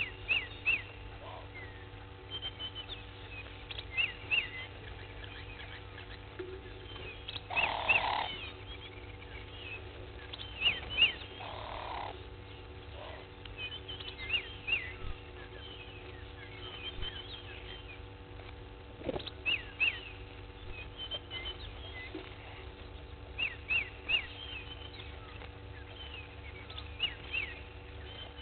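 Outdoor bush ambience of birds: many short, high chirps and calls scattered throughout, with two louder, lower sounds around eight and twelve seconds in, over a faint steady hum.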